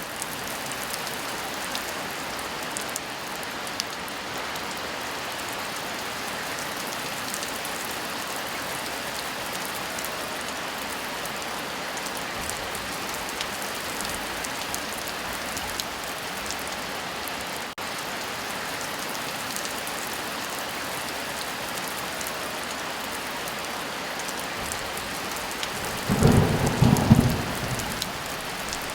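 Steady heavy rain, with a loud clap of thunder about three-quarters of the way through that rumbles for a second or two.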